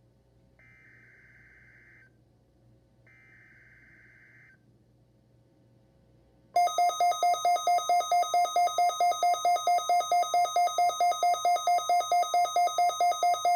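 Two short bursts of warbling digital SAME header tones from a NOAA Weather Radio broadcast, the opening of a Required Weekly Test. About six and a half seconds in, a much louder electronic alert alarm starts, beeping rapidly at about four to five beeps a second, and runs to the end.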